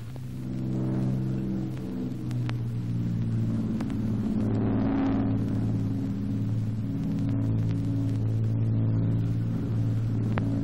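Steady drone of piston aircraft engines: a low, even hum with a rougher swell about halfway through.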